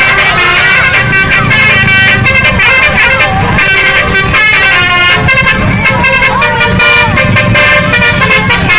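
A bus's multi-tone 'telolet' musical horn (basuri type) playing loud, continuous chords that switch from one set of notes to another, with people's voices shouting over it.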